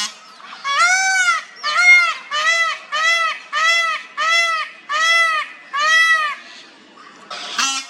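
Male peafowl calling: a rapid series of about nine short, loud, nasal calls, each rising and falling in pitch, repeated roughly every half second before a pause near the end.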